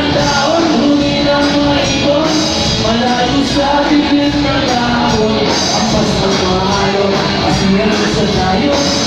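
Live rock band: a male lead singer singing over electric guitars and the full band, all at a steady, loud level.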